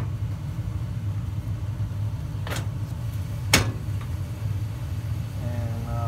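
Trane 80% gas furnace running with a steady low rumble, with two sharp clicks about two and a half and three and a half seconds in.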